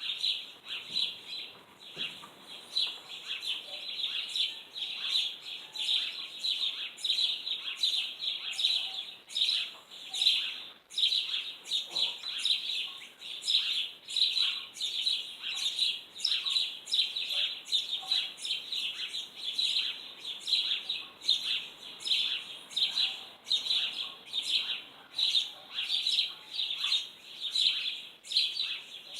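Small birds chirping continuously, a rapid, unbroken run of short high notes.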